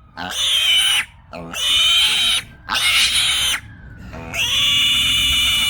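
Young kunekune boar screaming loudly in pain while held for castration, as a testicle is pulled out through the incision: four long, high-pitched screams, each about a second, with short gasping catches of breath between them.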